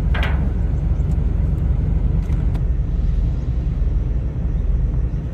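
Boat engine running steadily with a deep, even throb.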